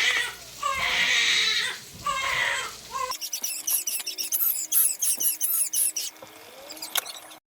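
A young child crying and whining in high, wavering wails. About three seconds in, the sound cuts to chicken sizzling and crackling as it fries in a pan.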